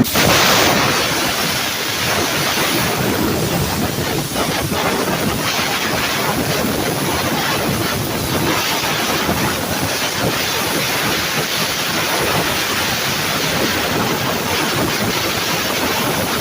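CNC plasma cutter torch cutting with a steady, loud hiss.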